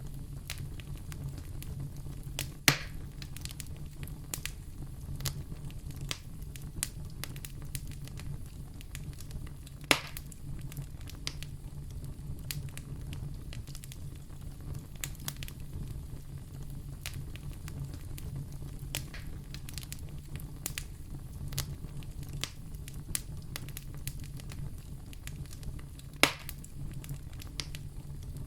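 Wood fire burning in a fireplace: a steady low rumble of the flames with frequent small crackles and three louder pops spread through it.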